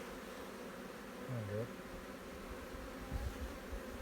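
Honey bees buzzing steadily around an open hive, with a brief louder swooping hum about a second and a half in.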